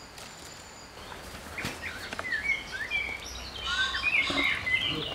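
Small birds chirping and twittering, a string of short high gliding calls that starts about two seconds in and grows busier toward the end, over a faint low outdoor rumble.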